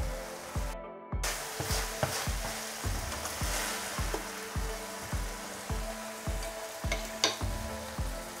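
Chicken strips in teriyaki sauce sizzling on a hot stainless-steel griddle plate as the sauce caramelises, with a metal spatula scraping them off the plate. Background music with a steady beat of about two thumps a second plays throughout, and the sound drops out for a moment about a second in.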